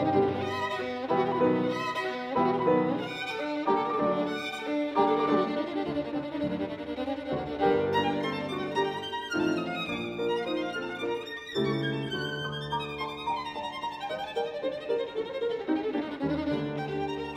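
Instrumental music from a car-audio sound-quality judging disc, one of its musical tracks for evaluating soundstage and system characteristics.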